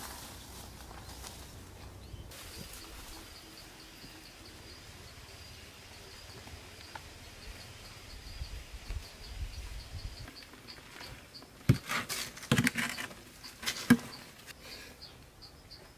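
An insect trilling in a fast, high, even pulse, starting a few seconds in. About twelve seconds in come several loud thuds and rushing pours as loose red soil is tipped out of clay pots onto a heap.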